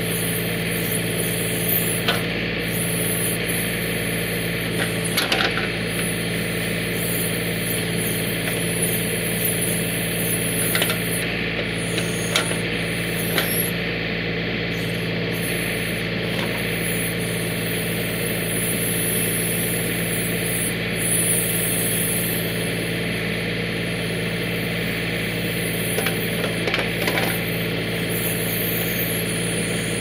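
John Deere 3032E compact tractor's three-cylinder diesel engine running steadily, with a few short knocks and clicks scattered through it.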